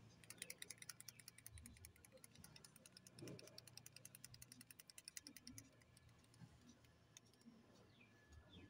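Small touch-up paint bottle being handled and worked open, giving a fast run of faint small clicks for about five seconds, then a few soft knocks.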